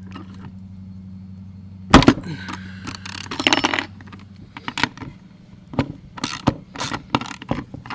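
Metal tools clinking on an EGO edger's blade assembly, with a sharp knock about two seconds in, then a run of quick ratchet clicks from the 5/8 socket wrench working the blade nut. A low steady hum sounds under the first half and stops.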